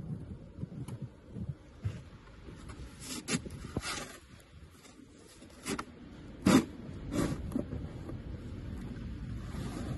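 Plastic snow shovel scraping and pushing through snow, a series of short strokes, the loudest a little past the middle. Wind rumbles on the microphone at the start.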